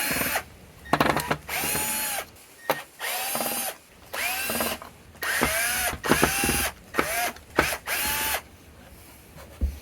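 Cordless drill-driver backing screws out of cabinet door hardware in about seven short runs. Each run spins up, holds briefly and winds down, with small clicks between runs.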